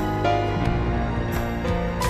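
Slow, gentle instrumental background music with held notes changing every half second or so.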